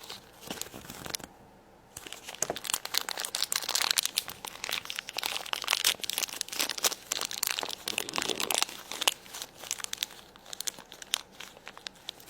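Plastic packaging crinkling and tearing as small Shopkins toys are unwrapped by hand. The crackling is dense and irregular, with a short lull about a second and a half in and the busiest handling in the middle.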